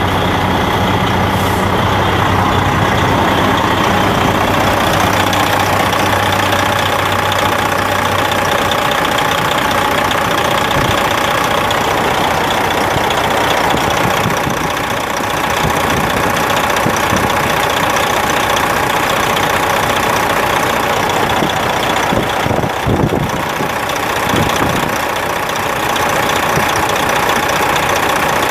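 Detroit Diesel Series 60 11.1-litre inline-six diesel engine idling steadily, with a few brief knocks late on.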